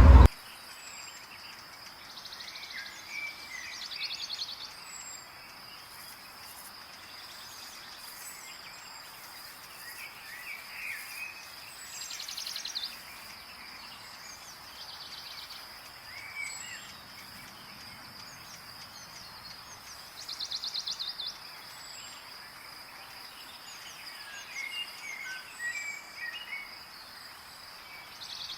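Birds chirping and calling now and then over a steady high-pitched insect drone, with short buzzy trills every few seconds.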